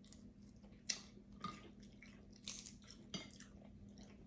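Someone eating snow crab legs close to the microphone: quiet chewing with four sharp cracks and crunches of shell, the loudest about a second in.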